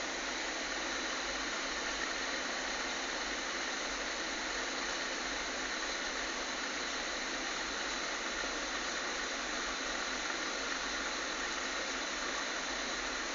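A 24 V cooling fan on a homemade ice-box air cooler running steadily, an even airy whoosh.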